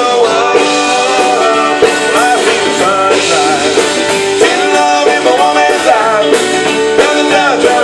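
Live band playing a song with guitars and drums.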